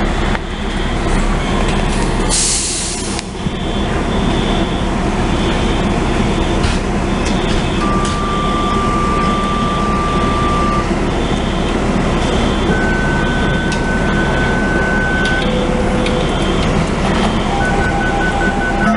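Fire truck engine running loudly, with a short sharp hiss of air brakes about two and a half seconds in. Over it a building fire alarm sounds in a high, repeating on-off pattern, and a few long steady electronic beeps come later.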